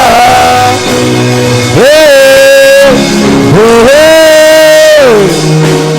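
A voice chanting two long held notes that swoop up into pitch, over worship music with sustained keyboard chords.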